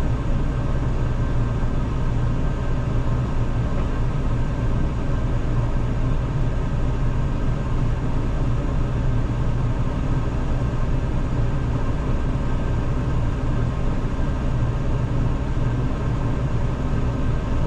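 Combine harvester's diesel engine running steadily, a low even drone with a few faint steady tones above it and no change in pitch.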